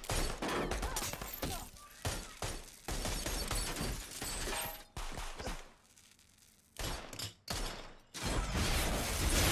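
Handgun gunfire in an exchange of shots: clusters of sharp, closely spaced shots, a short lull about six seconds in, then a louder, denser stretch of firing near the end.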